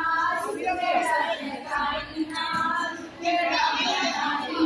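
A group of women singing a Karwa Chauth puja song together.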